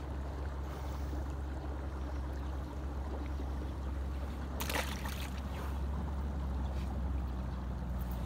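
Steady low rumble of wind on the microphone over the wash of river water. About halfway through, a short burst of splashing as the caught asp is dipped into the river, and a small splash near the end as it is let go.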